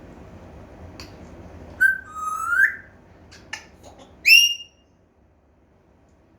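African grey parrot whistling: a short note, then a longer rising whistle, a few sharp clicks, and a loud, brief falling whistle about four seconds in.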